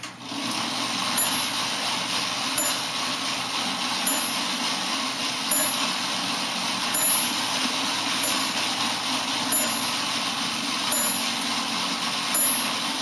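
William T. Smith coin-operated moving model locomotive starting up as the coin drops and running: a steady whir from its small battery-powered electric motor and gearing. A small bell in the model rings with a clear strike about every second and a half, about ten times.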